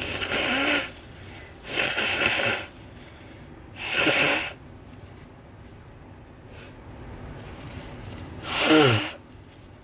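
A woman's sneezing fit: four forceful bursts of breath, the last and loudest ending in a voiced cry that falls in pitch. The sneezes are induced.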